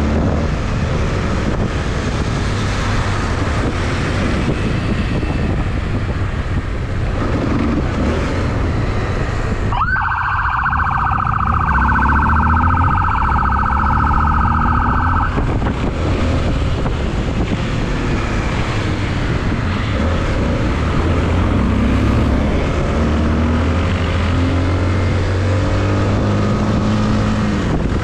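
Police motorcycle riding through city traffic, with engine and wind noise on the microphone throughout. About ten seconds in, a siren comes on with a quick rising sweep, holds a slightly wavering tone for about five seconds, then stops.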